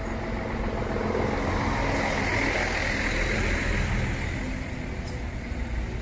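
Road traffic: a vehicle passing on the road, its noise over a steady low rumble swelling to a peak about two to three seconds in and then fading.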